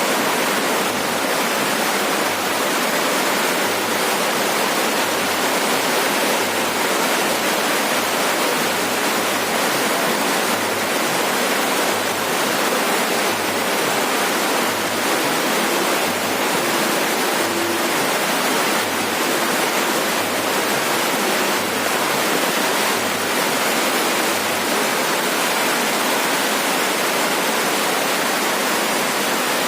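Heavy rain falling on a roof: a steady, dense hiss that does not let up.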